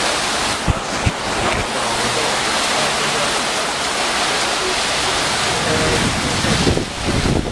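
Hurricane wind and rain making a steady, dense rush of noise, with two sharp knocks about a second in. Near the end, gusts buffet the microphone.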